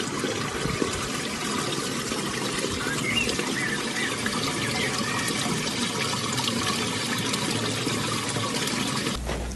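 Swimming-pool water running and trickling steadily.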